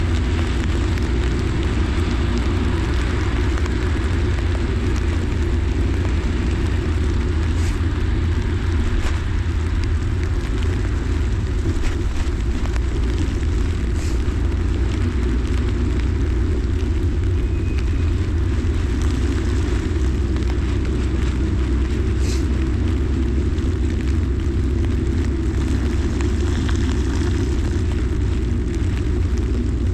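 Bicycle ride on a wet street in the rain: a steady low rumble with a constant hiss of rain and wet road over it, with a few faint short ticks.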